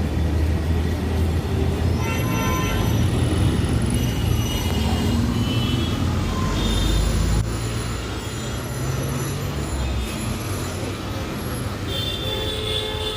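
Street traffic noise: a steady low engine rumble that eases off about seven seconds in, with occasional short high-pitched tones over it.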